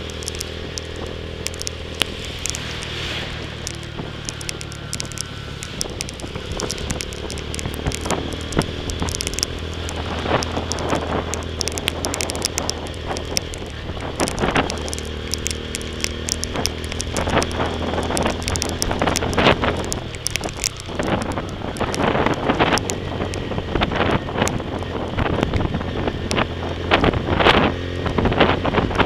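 TVS Tormax 150 motorcycle engine running at a steady cruise, with wind rushing over the microphone. Raindrops strike the camera in sharp taps, more of them in the second half.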